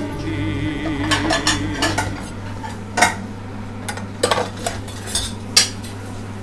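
A utensil clinking and scraping against a cooking pot during stirring: a run of sharp, uneven knocks, with the loudest about three seconds in and shortly before the end.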